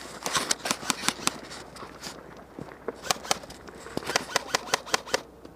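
Airsoft guns firing: several quick runs of sharp shots, the last a fast string of about five shots a second.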